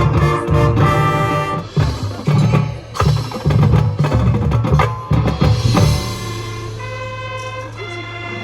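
Marching band playing, with drums and percussion hitting accented rhythms under the winds for about six seconds, then settling into a held chord over a sustained low note.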